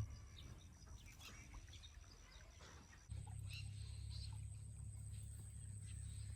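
Faint outdoor ambience with scattered short bird chirps and a faint steady high whine; a low steady rumble comes in about three seconds in.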